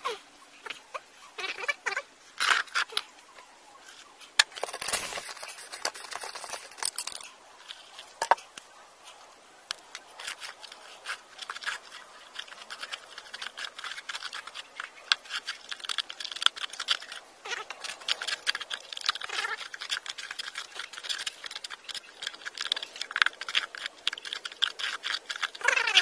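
Sandy mortar being scooped and worked by hand in a bucket: a dense, gritty run of small scrapes and clicks that grows busier about halfway through.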